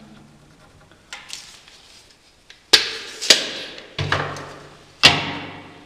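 Tools and a wooden board being set down and shifted on a wooden workbench: a few light clicks, then four sharp knocks in the second half, each ringing out briefly.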